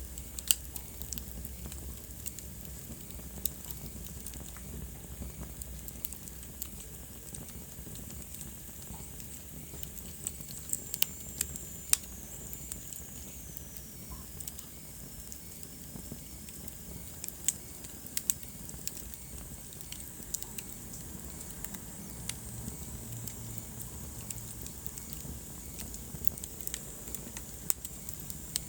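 Wood fire in a fireplace crackling, with irregular sharp pops over a steady low hiss and rumble of the flames. A thin high whistle slides downward in pitch for a few seconds around the middle.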